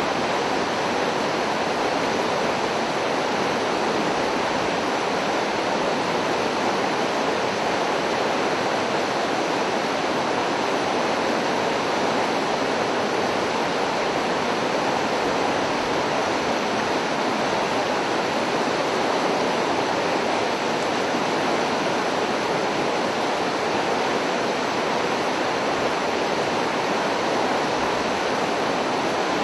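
Rushing creek water, a steady, even wash of sound with no rise or fall.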